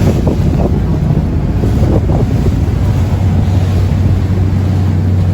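Lobster boat's engine running with a steady low hum, with wind buffeting the microphone and the sound of the sea around the hull.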